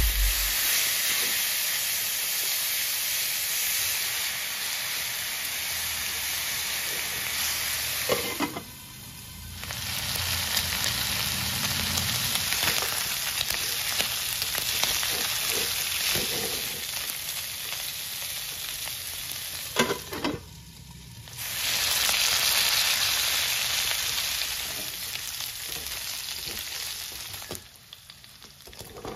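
Cubed pork belly sizzling as it fries and browns in a wok, stirred and turned with a slotted spatula, with scattered scrapes and taps of the spatula on the pan. The sizzle dips briefly twice and thins out near the end.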